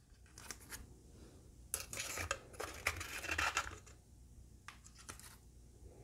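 A spoon scooping ground coffee into a reusable K-cup's mesh filter: dry scraping and rustling of the grounds for about two seconds in the middle, with a few light taps before and after.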